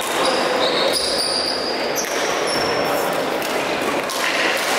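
Badminton hall ambience: scattered sharp racket hits on shuttlecocks and short high sneaker squeaks on the court floor over a murmur of voices, echoing in a large sports hall.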